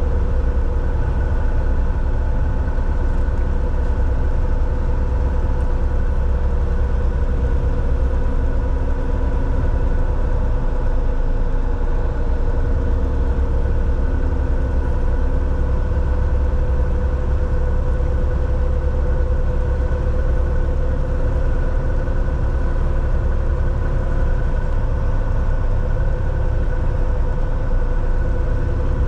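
Semi-truck's diesel engine and road noise heard from inside the cab: a steady low rumble with a constant hum.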